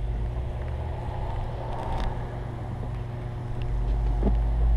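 Steady low wind rumble on a wearable camera's microphone, with a faint constant hum and a single sharp click about two seconds in.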